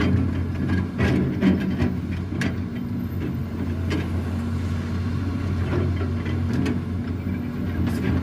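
An engine running steadily with a low hum, with a few short knocks and clicks scattered through it.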